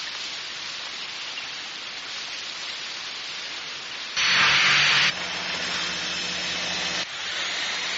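Steady hissing noise, then a louder rushing burst about four seconds in, followed by a low motor hum that stops about seven seconds in. These are cartoon sound effects of Mini 4WD cars speeding along a race track.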